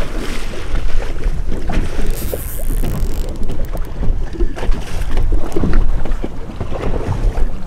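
Wind buffeting the microphone aboard a boat at sea, a loud, uneven low rumble, with scattered small knocks and clicks from hands rigging a frozen flying fish bait on the bait board. A brief hiss comes about two seconds in.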